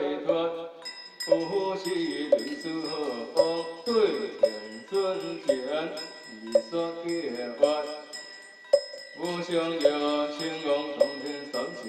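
Taoist scripture chanting, sung to a steady beat on a wooden fish (muyu) knocked about twice a second.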